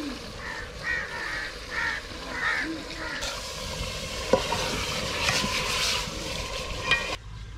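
Raw meat going into a steel pot of hot curry masala over a wood fire, sizzling, while a metal ladle stirs it and knocks against the pot twice, about four seconds in and again near the end. The sound cuts off suddenly just before the end.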